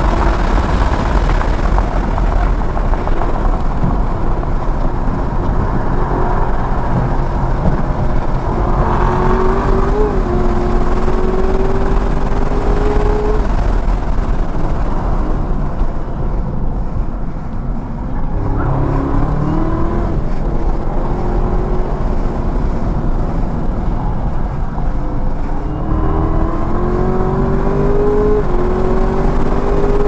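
Chevrolet Camaro ZL1 1LE's supercharged 6.2-litre V8 driven hard around a race track, with heavy wind and tyre noise. The engine note climbs under acceleration, drops away under braking around the middle, then climbs again through the last seconds.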